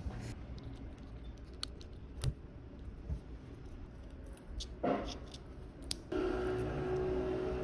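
Handling noise of an Apple Watch and its bands: scattered small clicks and scrapes of plastic and metal as a band is slid out of the watch and a steel Milanese-loop mesh band is fitted in its place.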